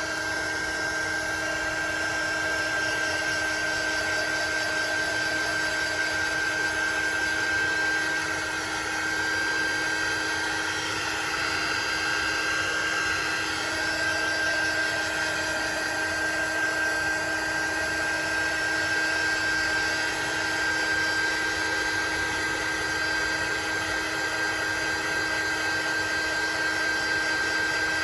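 Craft heat tool (embossing heat gun) blowing steadily, a continuous fan whir with a high, steady whine, used to dry ink on a paper card.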